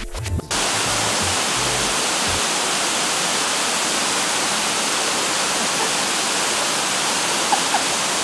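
Steady, even rush of a small jungle waterfall pouring into a pool. Background music stops in the first couple of seconds.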